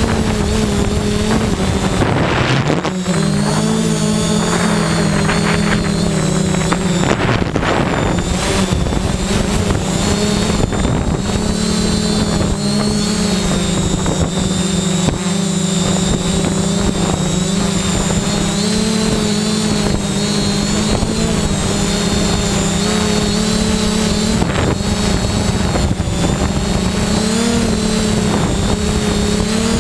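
Six electric motors and propellers of a 3DR Y6 drone running in a steady whine, heard up close from the camera mounted on the drone. The pitch dips and splits briefly about three seconds in as the drone adjusts, then holds steady.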